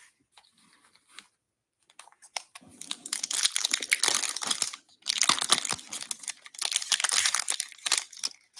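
A foil trading-card pack wrapper being torn open and crinkled by hand. The crackling starts a couple of seconds in and comes in three spells.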